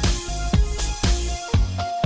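Background music with a steady electronic beat, about two beats a second, and held synth notes.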